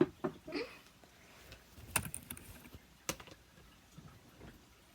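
Scattered clicks and taps of plastic fidget toys being handled and put away, with a few sharper clicks about two and three seconds in.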